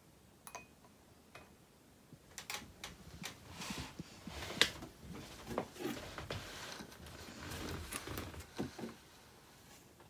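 Handling noises: cloth rustling and a scatter of light clicks and knocks, the loudest about four and a half seconds in, as a swaddled baby grey squirrel is put back in a plastic bin and a cardboard lid is laid over it.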